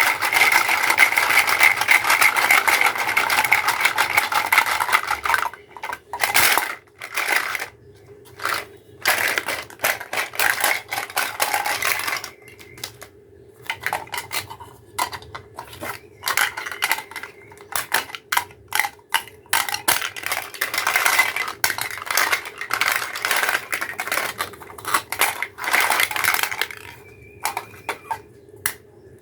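Small plastic toy kitchen pieces being handled, clattering and knocking together: a dense rattle for about the first five seconds, then scattered clicks and knocks.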